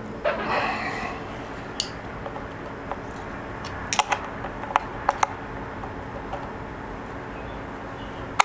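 Scattered sharp metallic clicks and taps of hand tools working the clutch adjuster nut on a motorcycle's primary cover, over a steady low hum.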